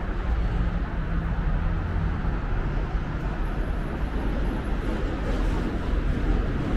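City street traffic: the steady rumble of passing vehicles' engines and tyres, with a low engine drone over the first couple of seconds.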